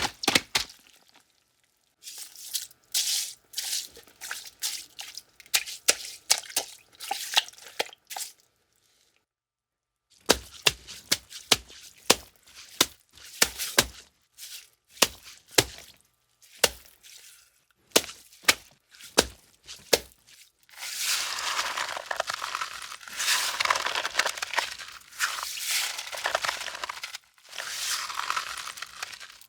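Foley footsteps for a walk on a frozen lake: a run of crunching steps in snow, a pause, then sharper, separate cracking steps, and near the end a long stretch of dense crackling and crunching.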